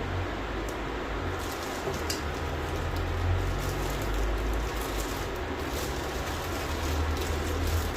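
Steady low hum with a noisy hiss over it, and a few faint clicks scattered through.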